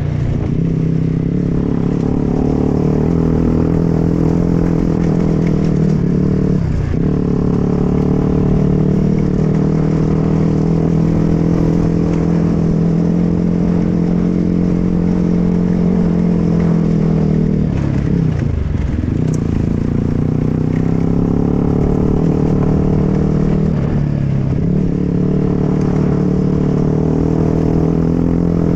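Dirt bike engine running under throttle while riding off-road. The pitch drops and climbs back three times as the throttle is shut and reopened, with some rattling over rough ground.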